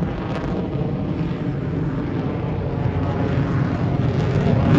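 Jet noise from a fighter aircraft flying overhead in a slow loop: a steady low rumble that grows a little louder near the end.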